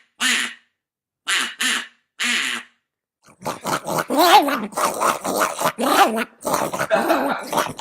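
An animal's odd vocal sounds: four short quack-like honks in the first three seconds, then a rapid, continuous run of grunting, growling noises that wobble in pitch.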